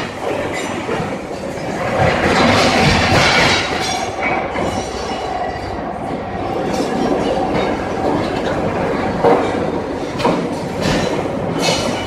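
Automatic electric furnace lining vibrator running, its vibrating head compacting ramming mass inside the furnace. It makes a loud, steady rattling clatter over a constant whine.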